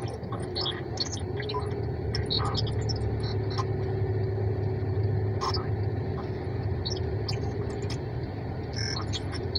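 Steady low hum inside a car cabin, with a faint steady whine above it and scattered small clicks.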